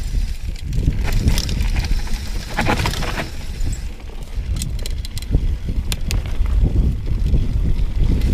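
Mountain bike descending a rough dirt trail at speed: a constant low rumble of knobby tyres and wind buffeting the camera microphone, with frequent sharp clicks and rattles from the bike over the rough ground.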